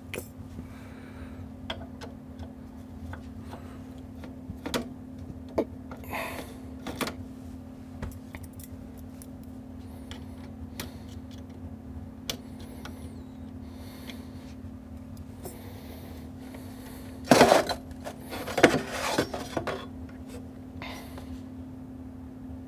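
Small metal parts and hand tools being handled inside an open amplifier chassis: scattered light clinks and taps, with a louder burst of metal clatter about three-quarters of the way through, over a steady low hum.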